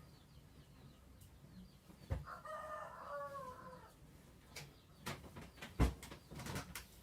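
A rooster crowing once, a call of about a second and a half in the background, with several sharp clicks or knocks around it, the loudest about 6 seconds in.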